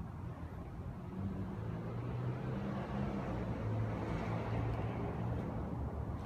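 Low engine drone of a passing motor vehicle, growing louder after about a second and easing slightly near the end.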